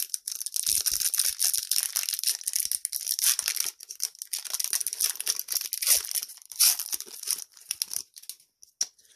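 Trading card booster pack wrapper being torn open and crinkled: a dense run of crackling and tearing that dies down about eight seconds in.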